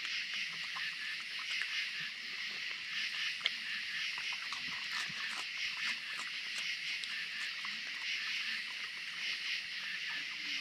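Raccoons chewing and crunching food at a wooden feeding table: irregular small clicks and wet smacks, one sharper click about three and a half seconds in. Underneath, a steady high chorus of night insects.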